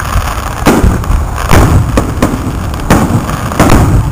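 Aerial firework shells bursting during a fireworks display: about five sharp booms in four seconds over a steady low rumble.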